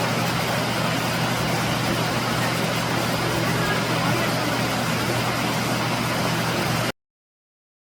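Waterfall rushing steadily, a dense even roar of falling water that cuts off suddenly to silence near the end.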